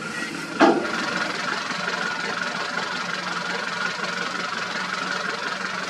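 Heavy diesel construction machinery running steadily, with a single loud bang about half a second in. The last beep of a reversing alarm sounds right at the start.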